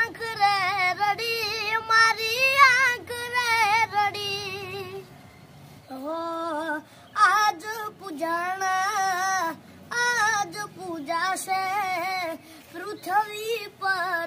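A young boy singing solo, unaccompanied, his voice wavering through ornamented melodic turns, with two short pauses between phrases.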